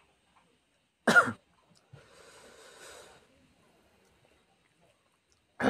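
A man coughing twice, one short sharp cough about a second in and another near the end, with a soft breathy hiss in between.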